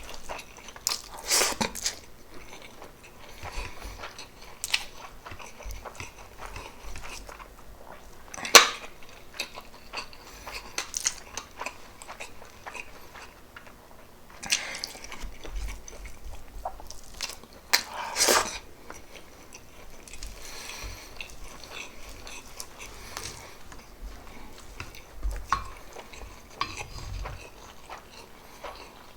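Close-miked chewing and biting of pork adobo with rice: mouth sounds with many scattered short clicks and a few louder bites, the loudest about eight seconds in.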